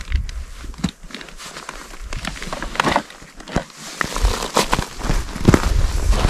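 Irregular crinkling and crunching of gear being pulled out of a fabric backpack, with boots crunching on crusty snow as the person shifts and stands up.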